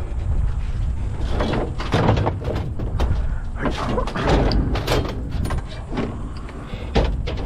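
Scrap metal being shifted around in a pickup truck bed: a string of metal scrapes, clanks and knocks.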